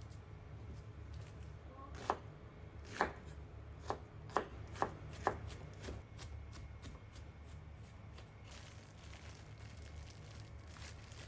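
Kitchen knife chopping on a cutting board: six separate knocks in the first half, then quicker, lighter cuts, over a steady low hum.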